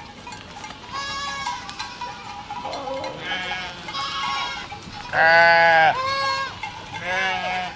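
A herd of goats bleating, one call after another from several animals. The loudest is a long, lower-pitched bleat about five seconds in.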